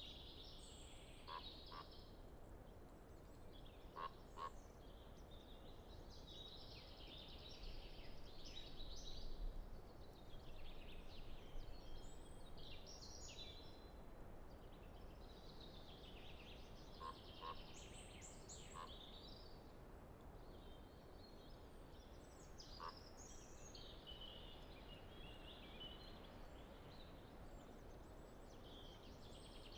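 Common chaffinch singing, its short song phrases repeated every few seconds.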